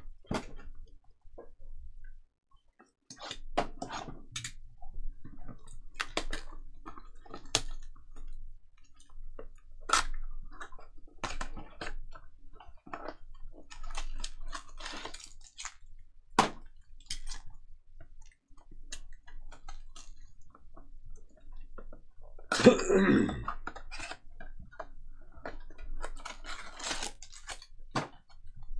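Hands handling trading-card boxes and foil card packs: a cardboard box flap is opened, packs are slid out and stacked, giving scattered clicks, taps and short crinkles. A single louder rustling burst comes about three-quarters of the way through.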